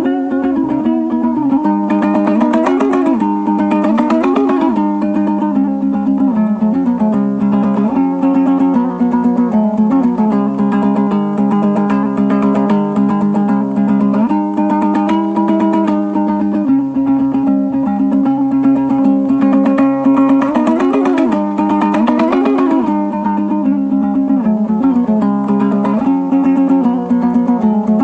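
Background music: a plucked-string, guitar-led instrumental with a steady, even level.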